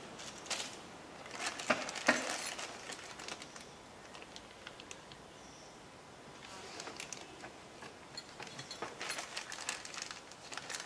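A few light clicks as small brass nozzle tips are set down, then a clear plastic packaging bag crinkling and rustling as it is handled, from about six seconds in.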